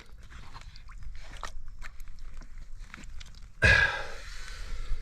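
Small knocks and rustles of a big mirror carp being handled over the side of a small boat, then a sudden loud splash about three and a half seconds in that fades over a second as the fish goes into the river.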